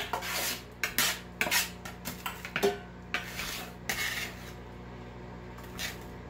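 Metal measuring cup scraping and scooping cut sweet corn kernels off a metal cookie sheet. It opens with a sharp knock, clatters through a run of scrapes over the first few seconds, then gives one more scrape near the end.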